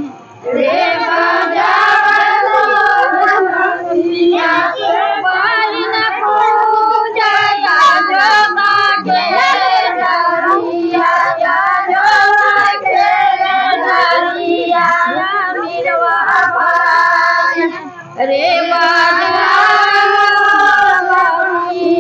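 Girls and women singing a Karma puja folk song together in phrases, with a short breath break just after the start and another near the end.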